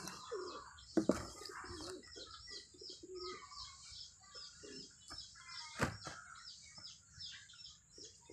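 Farmyard birds: a steady run of small, high chirps with lower wavering calls beneath them. Two sharp snaps stand out, one about a second in and one near six seconds.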